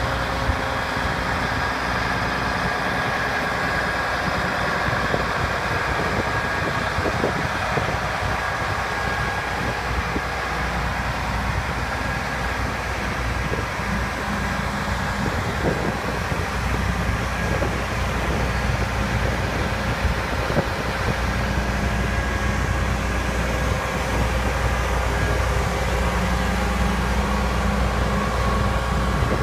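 Kenworth T600's Detroit Diesel DDEC engine idling steadily.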